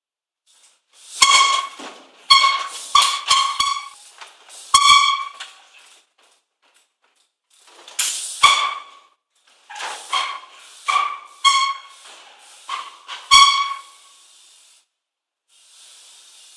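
Trials bike brakes squealing in short bursts, about a dozen times, each a high, fixed-pitch squeal, several coming with a sharp knock as the wheels land on wooden pallets and planks. Near the end a steady faint hiss takes over.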